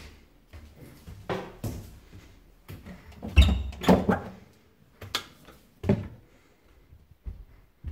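Footsteps going down tiled stairs, then a lever-handled door pushed open, with a loud clunk of the latch and door about three and a half seconds in, followed by a few more knocks and handling noises.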